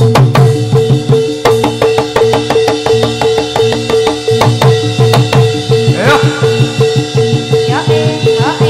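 Jathilan gamelan accompaniment: fast, even drumming and struck percussion over a steady held tone. Two short rising glides sound about six and eight seconds in.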